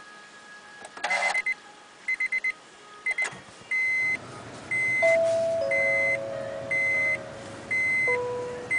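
Honda N-WGN's dashboard warning chime: a few quick high beeps, then a steady beep repeating about once a second once the ignition is switched on. A low hum sits beneath from about a third of the way in.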